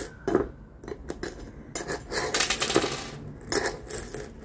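Small charms clinking and clattering against a miniature metal wok as they are stirred and scooped with a metal spatula. The clicks come unevenly and are busiest in the middle.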